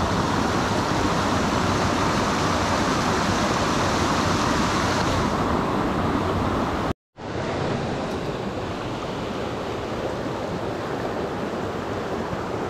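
Running water of a small creek, a steady rushing hiss. About seven seconds in it cuts out abruptly for a moment, then carries on slightly softer and duller.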